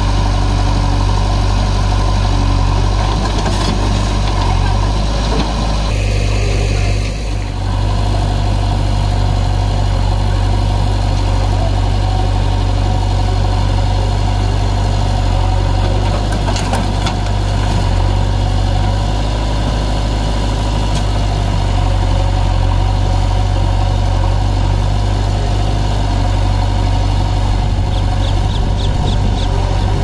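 Diesel engines running steadily: a JCB 3DX backhoe loader's engine working its backhoe arm, with tractor engines idling close by. The level dips briefly about seven seconds in.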